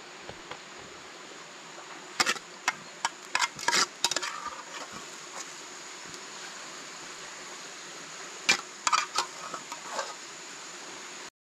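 Insects droning steadily in a thin, high, unbroken tone, with two clusters of short sharp clicks and knocks, about two seconds in and again near eight and a half seconds in.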